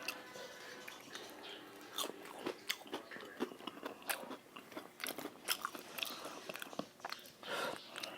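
Close-up eating sounds: crunching bites into crispy fried chicken skin and chewing, in many short crackly bursts.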